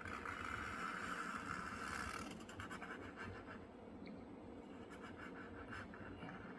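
Faint drawing strokes on paper: one longer continuous scratchy stroke for about the first two seconds, then shorter, fainter strokes.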